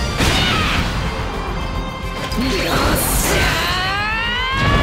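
Anime giant-robot battle sound effects over orchestral background music: crashing impacts, a whoosh about three seconds in, then a rising whine near the end.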